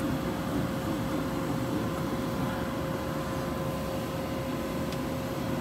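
Steady hum with a constant whine inside the cockpit of an Embraer Legacy 600 business jet on the ground, its auxiliary power unit running and supplying electrical power.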